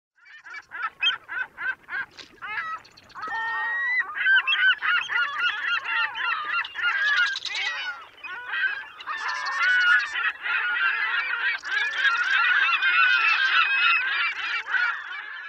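A flock of geese honking: separate calls a few times a second at first, then many calls overlapping in a continuous chorus from about four seconds in.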